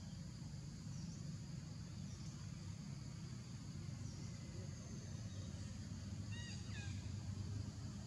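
Outdoor forest ambience: a steady low rumble under a high hiss, with faint short chirps every second or two and a brief, higher stepped call about six and a half seconds in.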